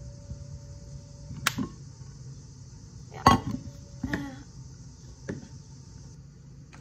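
Plastic-capped spice jars being handled on a kitchen countertop: a few sharp clicks and clacks as jars are picked up, shaken and set down. The loudest knock comes about halfway through.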